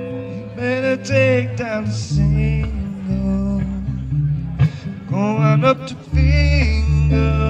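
Live band music: a man singing over electric bass guitar and guitar, the bass holding steady low notes beneath the sung phrases.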